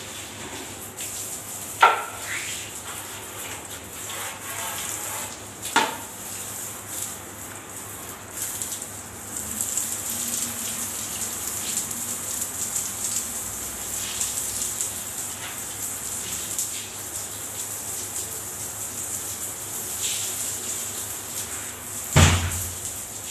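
Water spraying from a handheld bidet hose in a tiled bathroom, a steady hiss that grows stronger about nine seconds in. Sharp knocks cut through it about two and six seconds in, and a louder one near the end.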